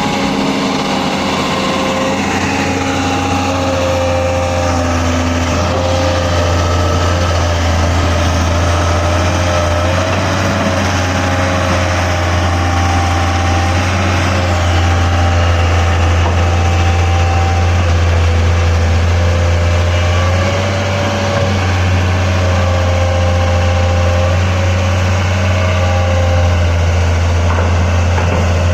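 Excavator's diesel engine running steadily, with a deep drone and a fainter whine above it that wavers in pitch now and then.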